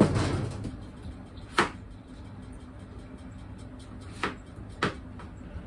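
Kitchen knife knocking on a cutting board as potatoes are cut: three sharp, widely spaced knocks over a faint steady hum.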